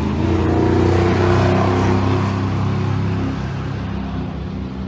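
A big truck's engine running as it moves off, growing quieter about three seconds in.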